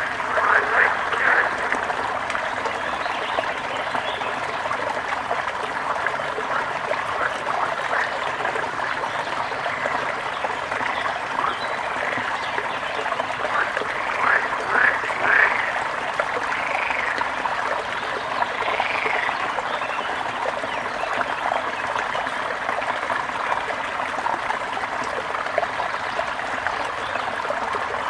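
Water trickling steadily, with short chirping calls over it: a cluster in the first second or so and a few more around the middle.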